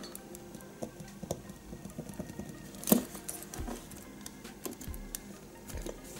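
Small die-cast and plastic scale model motorcycle handled over a tabletop: scattered light clicks and taps of its parts against fingers and the table, with one sharper click about three seconds in.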